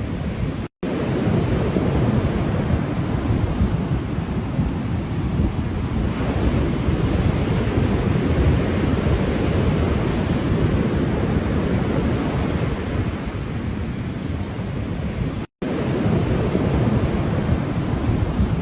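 Ocean waves breaking and washing in a steady surf noise, heaviest in the low end. It drops out to silence for an instant twice, about a second in and near the end.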